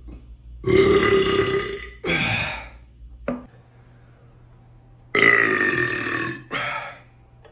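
A man belching: two long burps a few seconds apart, each followed at once by a shorter one.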